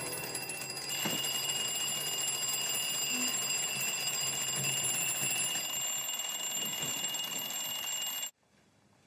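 Alarm clock ringing continuously, starting about a second in and cutting off suddenly near the end.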